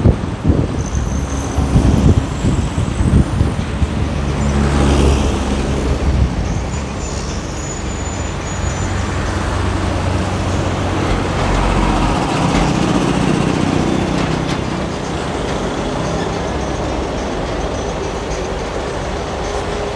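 City road traffic heard from a moving vehicle: engines running and steady road noise, with a deeper engine rumble over the first six seconds.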